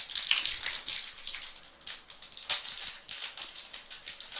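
Trading card packs and cards being handled: irregular crinkling and rustling of the pack wrappers, with small sharp clicks.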